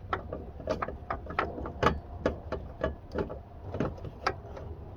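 Irregular sharp plastic clicks and taps, roughly two or three a second, as an H11 LED headlight bulb is twisted and seated in the back of the headlight housing.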